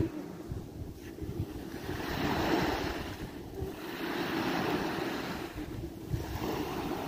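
Small sea waves breaking and washing up a sandy shore, swelling twice, with wind rumbling on the microphone.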